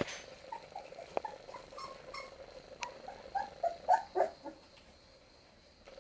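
Nearly four-week-old puppies whimpering in a string of short, high squeaks as they play, the loudest few about four seconds in, with a few sharp clicks among them.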